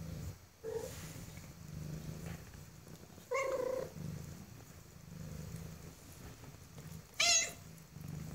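Bengal cat purring steadily in a low rhythmic rumble, while her young Bengal kittens mew: a short mew about a second in, then two loud, high, wavering mews, one about three seconds in and one near the end.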